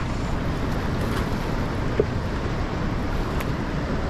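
Steady rush of fast-flowing river water with wind rumbling on the microphone, and one brief click about two seconds in.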